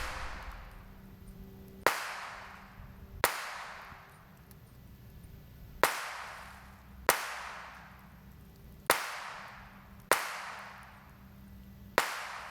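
Handgun shots fired at hanging steel targets: seven single shots at an uneven pace, about one every one to two and a half seconds, each followed by a trailing echo.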